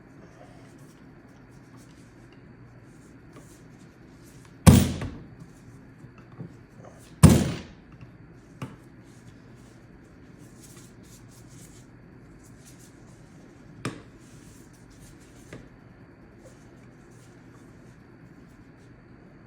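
Hand striking the side of a Norinco Type 56 SKS's trigger guard to seat the trigger group in the stock: two loud knocks with a short ring, a couple of seconds apart, then a few lighter clicks of metal parts.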